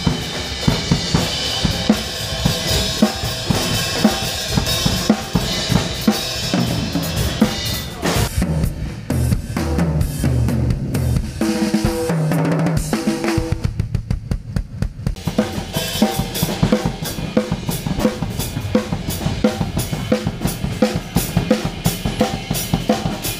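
Acoustic drum kit being played: kick drum, snare and cymbals in a steady pattern. The cymbal wash thins out about eight seconds in, and for a few seconds the sound is fuller, with some held ringing notes, before regular strokes return.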